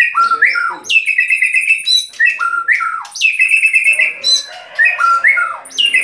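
White-rumped shama (murai batu) singing loudly: a fast run of phrases, each a steep downward-sweeping whistle followed by buzzy chattering notes, repeating about once a second.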